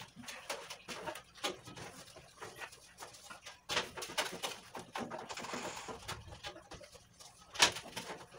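Household cleaning noises: scattered clicks, knocks and wiping as a gas stove and the wall behind it are cleaned by hand, with a brief hissing scrub or spray about five seconds in and one sharp knock near the end.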